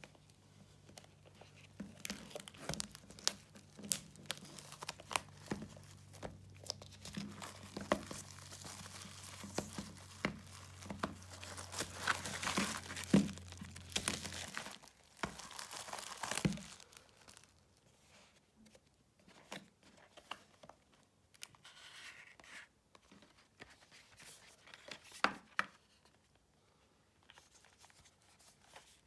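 Plastic wrapping being torn and crinkled off a new DVD box set: dense crackling for about fifteen seconds, then sparser handling crinkles and clicks.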